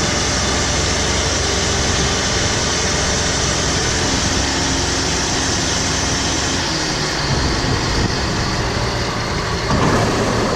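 Combine harvester's engine running steadily at close range, while the machine is positioned to unload rice into a truck. It grows louder and rougher near the end.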